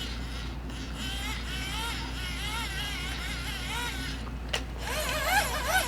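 The hand-crank dynamo of an EoxSmile CR1009 emergency radio being wound, giving a whirring whine that rises and falls in pitch with each turn of the handle. There is a click about 4.5 s in, then the whine gets louder and higher as the cranking speeds up.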